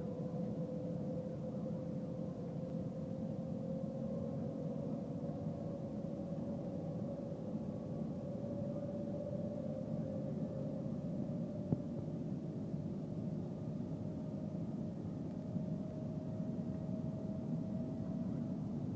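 Cabin noise of the Shanghai Maglev magnetic-levitation train under way: a steady low rumble with a faint tone that climbs slowly in pitch, and a single brief click about midway.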